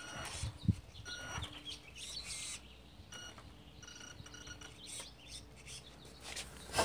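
Small birds chirping, with brief steady high-pitched whines from the RC truck's electric drive that start and stop, and a dull thump about a second in.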